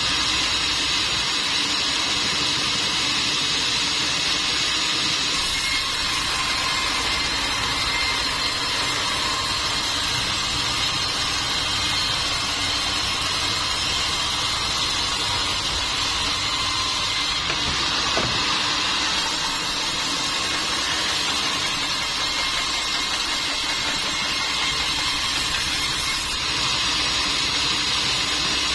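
Sawmill machinery running steadily: a continuous mechanical noise that holds the same level, with a brief change about eighteen seconds in.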